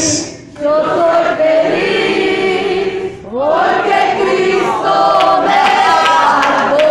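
Church congregation singing a worship chorus together, many voices at once. The singing breaks off briefly about half a second in and again around three seconds in.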